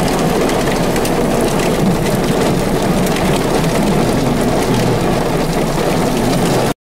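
Heavy rain pelting a vehicle's windows and roof, heard from inside the cab as a loud, steady rush with a low rumble beneath and fine patter on top. It cuts off suddenly near the end.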